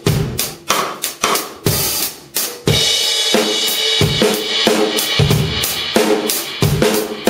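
C&C Custom drum kit with TRX cymbals played in a steady groove: kick and snare strokes with hi-hat, and a cymbal crash ringing out about two and a half seconds in.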